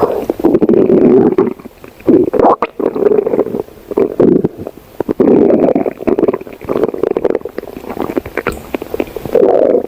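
Stomach growling loudly: waves of gurgling rumbles with crackles, each lasting a second or two, with short lulls between them.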